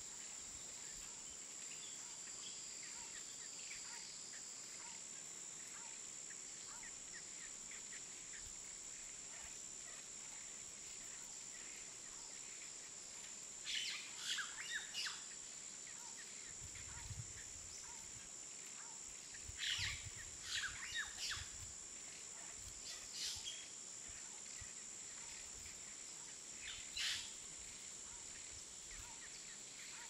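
Short bursts of bird calls, sharp chirps in four brief clusters from about halfway through onward, over a steady high-pitched insect drone.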